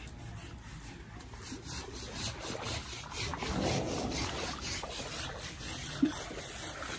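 Coconut husk scrubbing an Asian elephant's wet hide in quick back-and-forth strokes, a rhythmic rasping at about four strokes a second.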